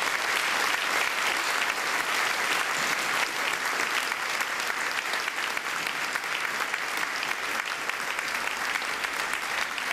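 Audience applauding: many hands clapping steadily, easing off slightly near the end.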